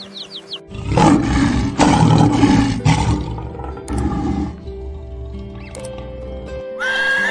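Lion roaring: a loud, rough roar from about a second in lasting about two seconds, then a shorter one near four seconds, over steady background music. Chicks peep at the very start, and a horse begins to whinny near the end.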